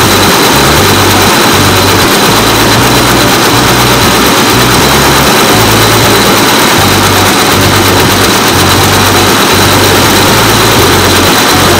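Richpeace computerized multi-head quilting machine running and stitching, a loud, steady mechanical din.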